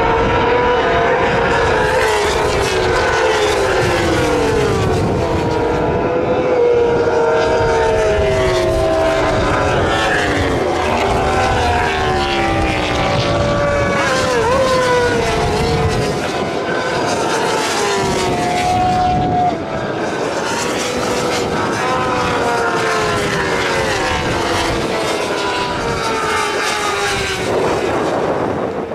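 Several racing motorcycles passing at speed one after another, their engine notes rising and falling through gear changes and as each bike comes by and goes away.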